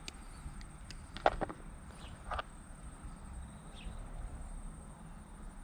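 Quiet outdoor background with a steady faint high-pitched insect-like drone and a few faint chirps, broken by two brief clicks about a second and two seconds in.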